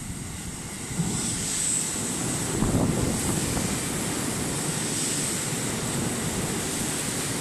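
JR Central 313 series electric multiple-unit train passing along the platform without stopping: a steady rumble and rush of noise that swells about a second in, with a sharp knock at that point, and stays loud as the cars go by.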